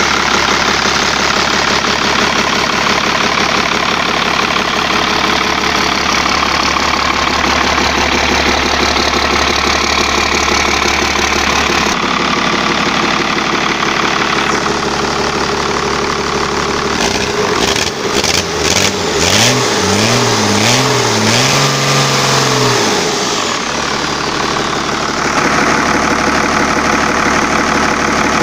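1991 Cummins 6BT 5.9-litre 12-valve turbocharged inline-six diesel running steadily at idle. About seventeen seconds in, its note rises and falls several times over some six seconds as it is revved, then it settles back to idle.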